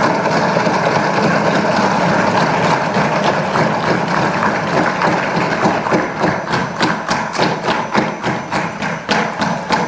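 A large crowd of legislators cheering, applauding and thumping their desks, the strokes falling into a regular beat of about three a second in the second half.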